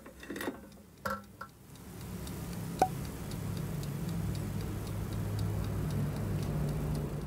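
Air fryer running with a low steady hum and regular light ticking, with a few knocks in the first second and a half and a sharp click about three seconds in.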